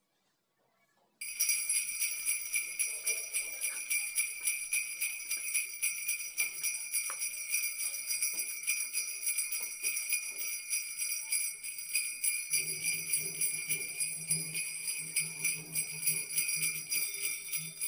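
Bells jingling in a rapid, continuous shake that starts suddenly about a second in; a low steady hum joins about two-thirds of the way through.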